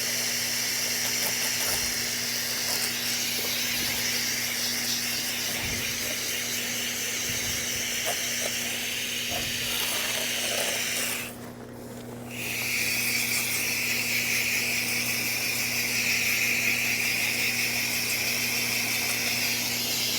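Water hose spray hissing steadily as it rinses debris off an air conditioner's condenser coil fins, with a steady low hum underneath. The spray cuts off for about a second around the middle and then resumes with a lower, steadier hiss.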